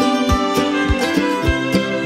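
Background music with a steady beat: a low drum thump a little under twice a second under held instrument notes.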